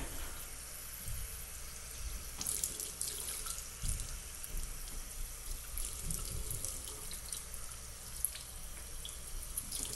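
Bathroom sink faucet running in a steady stream, the water splashing through a doll's long hair into the basin as it is rinsed wet. A few soft low bumps from handling come through.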